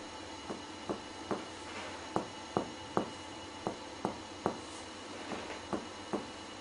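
Finger-on-finger percussion of the chest: a hand taps a finger laid flat on the patient's side, three short taps at a time, about 0.4 s apart, with a group roughly every second and a half. The chest gives back a clear lung resonance, which is normal over healthy lungs.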